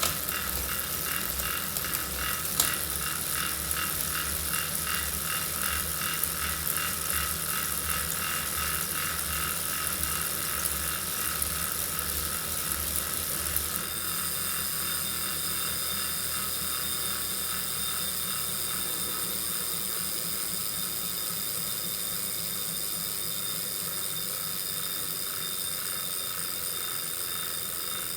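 Wahoo Kickr Core direct-drive smart bike trainer running, with an unwanted rhythmic click at about two to three clicks a second. About halfway through the clicking stops and only the trainer's steady running whine remains.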